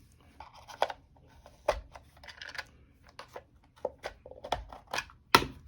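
Irregular sharp clicks and light rattling from the polymer parts of a Magpul PMAG D-60 drum magazine as it is pried and pulled apart during disassembly. The loudest click comes near the end.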